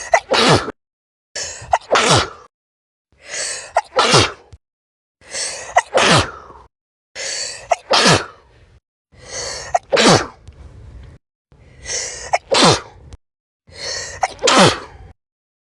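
A person sneezing eight times, about one every two seconds. Each sneeze is a quick noisy breath in followed by a sharp burst whose pitch falls away, with dead silence between them.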